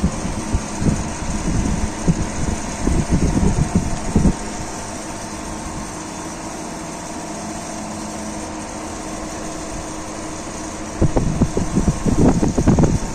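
Electric fan running with a steady motor hum. Its airflow buffets the microphone in heavy low gusts during the first four seconds and again near the end.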